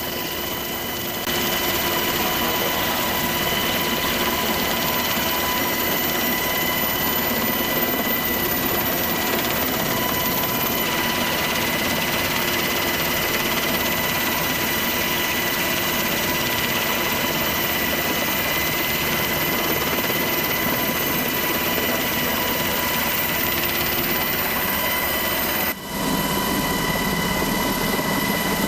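Helicopter running with a steady, dense turbine and rotor noise and a steady high whine, getting louder about a second in and briefly dropping away near the end.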